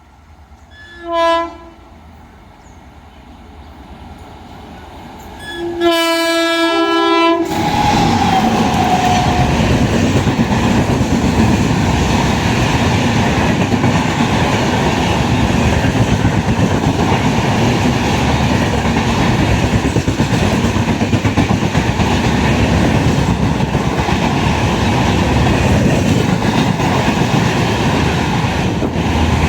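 A passing Indian Railways express train led by a WAP-5 electric locomotive sounds its horn: a short toot about a second in, then a longer blast about six seconds in. The train then rushes past close by with steady, loud wheel-on-rail noise for the rest.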